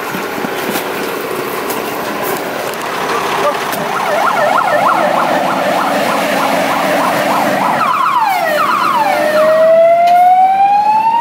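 Fire engine siren as the truck pulls out over engine and road noise: a fast warbling yelp starts about four seconds in, changes to a few falling sweeps, then a long rising wail near the end.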